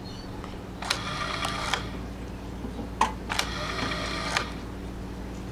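Electric deep-sea fishing reel's spool and drag mechanism whirring and clicking in two bursts of about a second each, with a sharp click between them, as the drag is being tightened.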